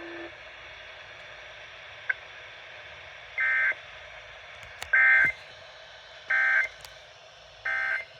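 Emergency Alert System end-of-message data bursts from a NOAA Weather Radio broadcast: four short, high, buzzy bursts about a second and a half apart over steady radio hiss, with a few faint clicks between them. They mark the end of the alert message.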